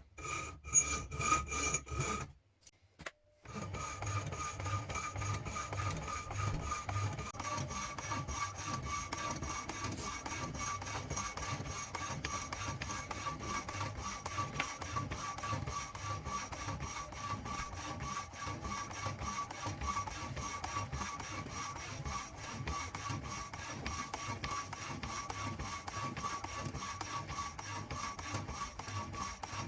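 Homemade wooden power hacksaw driven by a washing-machine electric motor, running steadily with a constant whine while the blade rasps back and forth in an even rhythm. It starts after a brief pause about three seconds in.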